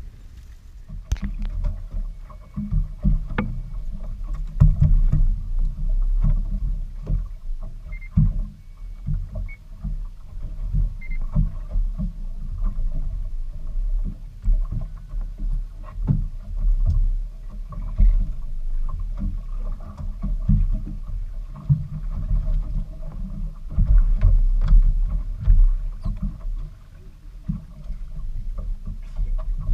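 Fishing boat under way: a low, uneven rumble of motor and water that swells and dips, with a faint steady hum over it and scattered small knocks.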